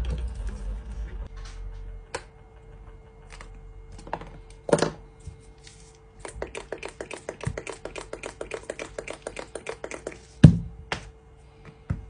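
Hands working at a bench: a rapid run of light clicks and taps lasting about four seconds in the middle, two heavier thuds as things are set down, the louder one about ten seconds in, and a faint steady hum underneath.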